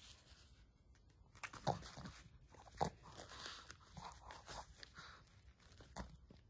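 Faint rustling and crinkling of paper as a Shih Tzu mouths and tugs at it, with a few short sharp crackles about a second apart.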